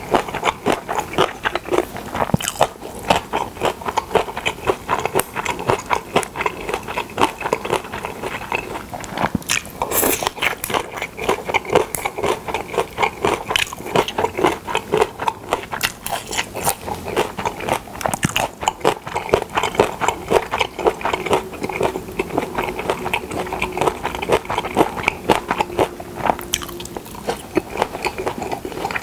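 Close-miked chewing of pressed pork slices and seasoned dried radish strips: a continuous run of quick, crunchy, wet mouth clicks and smacks.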